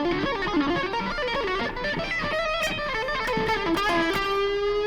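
Electric guitar playing a fast ascending blues-scale run, three notes per string, then settling on one long held note with vibrato near the end.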